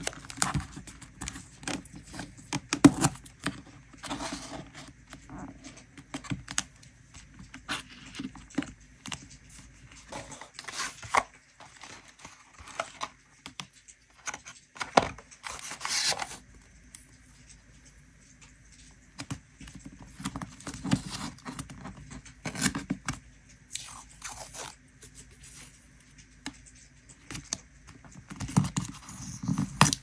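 Close-up handling of paper and washi tape: tape strips pressed and smoothed onto a journal page, with paper scraping, crinkling, tearing and small taps in irregular bursts. A longer, louder scrape comes about fifteen seconds in.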